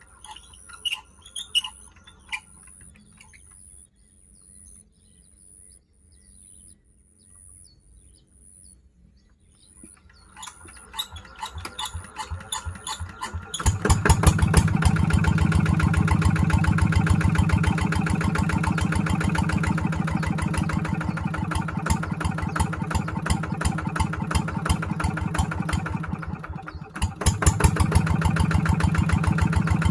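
Kubota diesel engine on a water pump being started: birds chirp at first, then about ten seconds in the engine's beat picks up speed, and a few seconds later it catches and runs loudly and steadily. It dips briefly near the end before running on.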